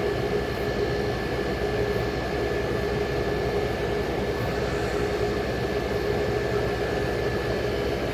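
Old General Electric Carry Cool portable window air conditioner running: a steady even hum and rush of air with a faint constant whine.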